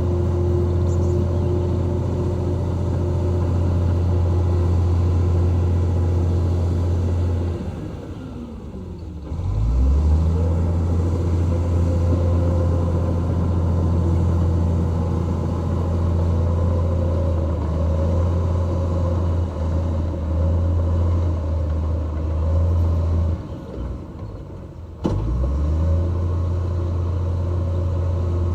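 Heavy earthmoving machine's diesel engine running with a deep steady drone. About eight seconds in it drops away with a falling then rising pitch before coming back, and it dips again near the end, cutting back in abruptly about twenty-five seconds in.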